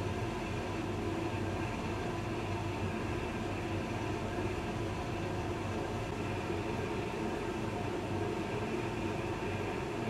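Hotpoint tumble dryer running with its top panel removed, a steady hum and rumble from the motor and the turning drum, just started up after a repair.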